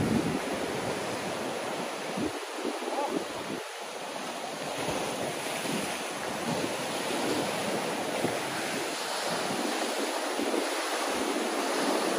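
Ocean swell surging and washing white water over a rock ledge, with wind buffeting the microphone in gusts.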